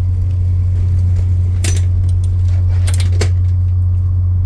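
Steady low rumble heard from inside a moving vehicle, with a few short light metallic rattles or clinks about a second and a half in and again around three seconds.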